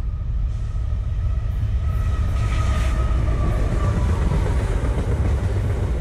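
CSX freight train led by a GE ET44AH diesel locomotive coming up and passing close by: a steady low rumble of engine and wheels on rail, with a thin whine that falls slightly in pitch as the locomotive goes by, then loaded freight cars rolling past.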